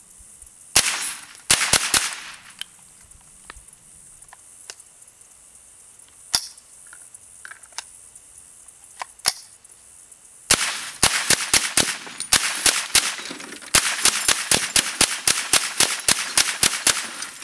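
Smith & Wesson M&P15-22 semi-automatic .22 LR rifle firing. Four shots come in the first two seconds, then a couple of single shots a few seconds apart. From about ten seconds in there is rapid fire at about five shots a second until just before the end.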